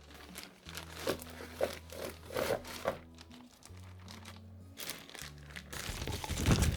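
Packaging crinkling and rustling as it is handled, in two spells with a pause between them, over steady background music.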